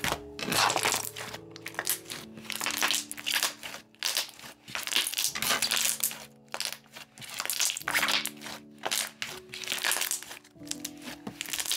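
Thick white slime being squeezed, folded and pressed between the hands, giving quick bursts of crackly squishing noise, with short pauses between handfuls.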